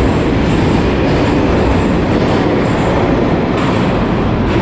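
A metro train pulling out of an underground station and running off into the tunnel: a loud, steady rolling noise of wheels on the rails.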